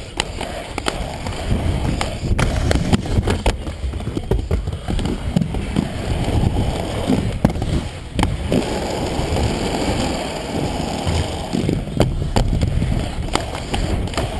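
Aggressive inline skate wheels rolling fast over rough concrete, a steady gritty rumble, with sharp clacks every second or two as the wheels hit joints and ramp edges.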